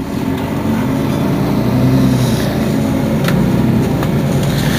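Mercedes-Benz Citaro city bus engine running steadily, getting louder about half a second in.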